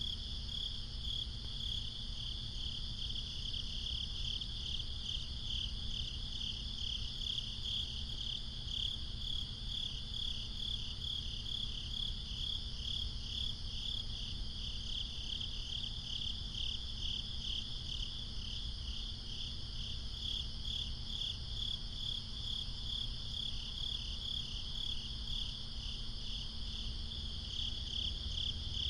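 Night crickets chirping in a steady, evenly pulsing chorus, over a low steady rumble.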